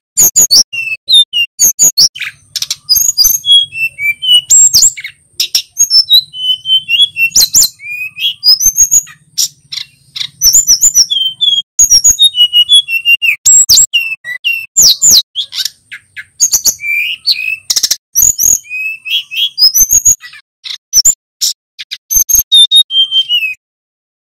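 Male hill blue flycatcher singing hard: a long, loud run of fast, high whistled phrases with quick rising and falling sweeps and sharp clicks, breaking off shortly before the end.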